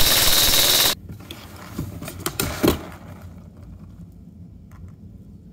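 Airsoft P90 firing a full-auto burst, a loud dense rattle that cuts off abruptly about a second in. It is followed by light plastic clicks and rattles as the clear plastic safety glasses are handled, then a few faint clicks.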